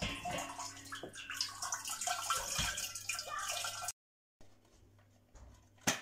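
Water streaming and dripping off a cassette of glass jars as it is lifted out of the autoclave's water bath, with small clinks of the jars and rack. After an abrupt cut it goes quiet, with one sharp metallic click near the end.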